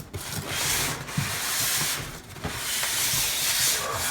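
Packaging scraping and rustling against the box as a heavy espresso machine is pulled out, in two long drawn-out stretches with a short break about two seconds in.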